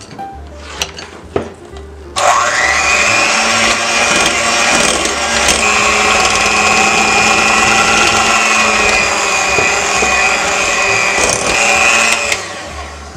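Electric hand mixer switched on about two seconds in, its motor whine rising quickly to a steady pitch as the beaters work flour into a creamed butter cake batter in a glass bowl, then switched off near the end.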